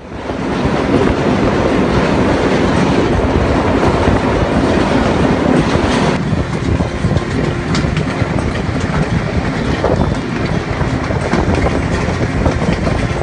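Passenger train running at speed, heard from inside a carriage at the window: a loud, steady rumble with the clatter of wheels over rail joints.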